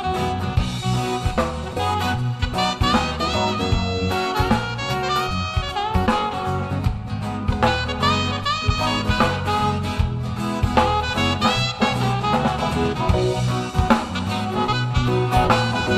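Live band playing an instrumental break: a saxophone solo with a running, bending melody over drum kit and band accompaniment.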